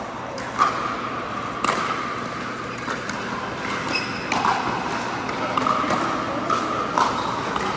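Pickleball rally: paddles striking the hard plastic ball, sharp pocks a second or so apart, each with a short ring.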